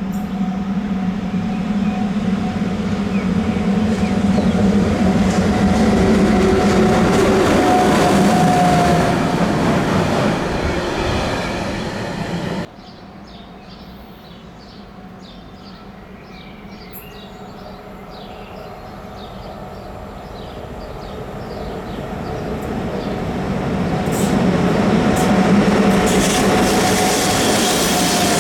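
Electric-locomotive-hauled train passing, with a steady running hum and rail noise that build to a peak and then ease. About halfway through the sound drops off suddenly to a much quieter stretch with faint short chirps, then another train approaches and grows loud near the end.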